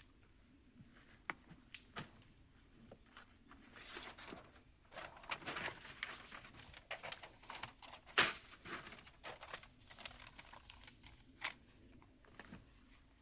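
Faint handling noises: rustling and crinkling with scattered light clicks and knocks. The loudest is a sharp knock about eight seconds in.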